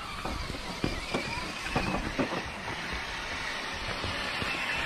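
Scale RC crawler driving along a dirt trail: a steady drivetrain hum with irregular crunches and clicks from its tyres rolling over dirt and stones, thickest in the first half.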